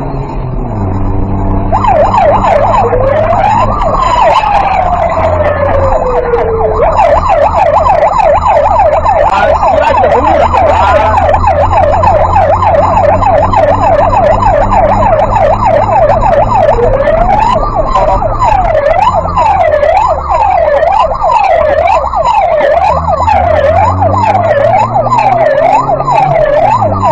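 Electronic siren on a racing tow truck. Starting about two seconds in, it gives one slow wail up and down, then switches to a rapid yelp for about ten seconds, then to a slower up-and-down sweep about once a second. The truck's engine hums underneath.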